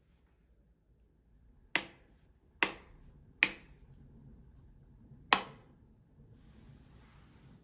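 Four sharp clicks of wall light switches being pressed, the first three close together and the fourth about two seconds later, switching the room lights off.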